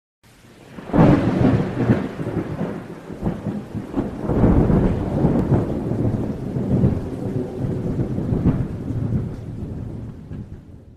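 Thunderstorm: steady rain with rumbling thunder and several sharp cracks, the loudest about a second in, fading out near the end.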